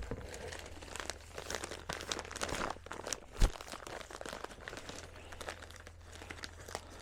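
Packing paper crinkling and rustling as individually wrapped motorcycle exhaust pipes are unwrapped, with one dull thump about halfway through.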